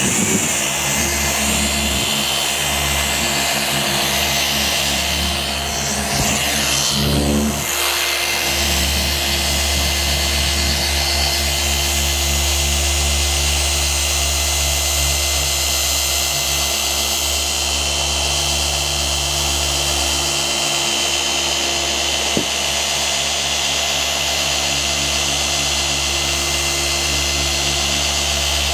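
Rupes polisher with a microfiber cutting pad running steadily at speed 4, cutting out 2000-grit wet-sanding scratches in car paint. The pitch wavers briefly about six to eight seconds in.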